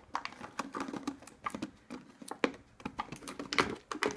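Plastic lid and seal of a Lay's Stax chip tube being fumbled and pried at one-handed: irregular clicks, taps and scrapes, with a louder cluster about three and a half seconds in.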